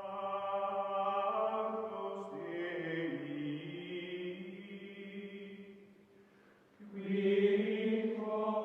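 Background music of long held, chant-like tones that shift slowly from chord to chord. It dies away about six seconds in, comes back a second later, then stops abruptly.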